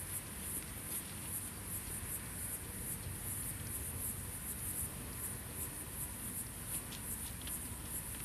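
Kittens scuffling and wrestling in dry leaves and soil in a plant pot, a soft rustling with a few scratchy clicks near the end, over a steady high-pitched pulsing hiss.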